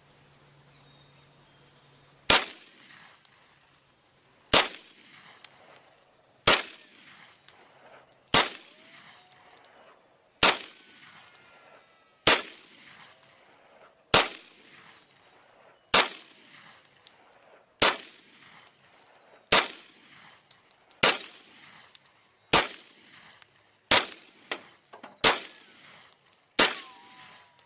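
Glock Model 40 10mm pistol firing fifteen single shots, one full magazine, spaced about two seconds apart at first and quickening toward the end. Each shot has a short decaying tail.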